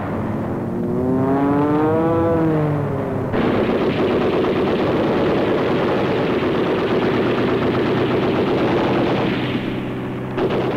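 An aircraft engine whine rising and then falling in pitch, as a plane passes, for about three seconds. Then sustained rapid machine-gun fire over a steady engine drone, breaking off near the end before another burst.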